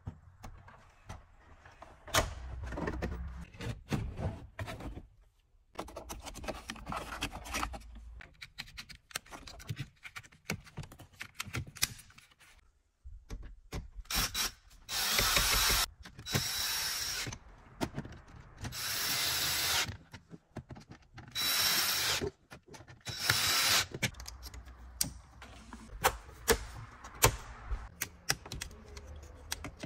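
Clicks and rattles of plastic car-interior trim being handled and fitted. In the middle come about five short runs of a cordless screwdriver, each about a second long, driving screws into the dashboard, followed by more clicking of trim.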